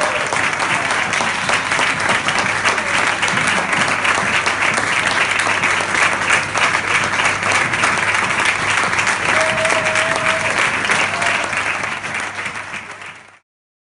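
Audience applauding: a dense patter of many hands clapping, fading out near the end.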